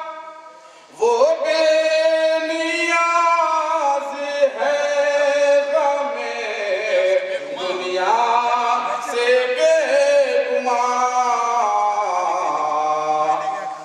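A man singing unaccompanied through a microphone and loudspeakers, a devotional chant of long drawn-out notes that bend and waver in pitch. The voice breaks off briefly at the start and comes back in about a second in.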